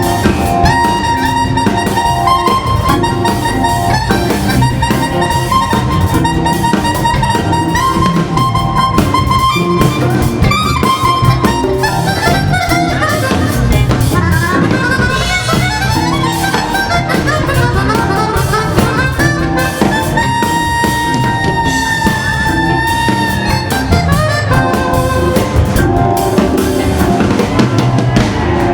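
Hammond organ playing soul-jazz with a drum kit, the organ holding long sustained notes over a steady groove.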